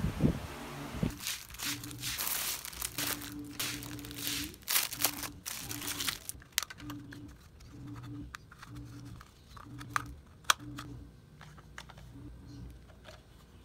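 Clear plastic packaging bags crinkling as they are handled. Then scattered light clicks and taps as small hard plastic parts are handled and fitted together.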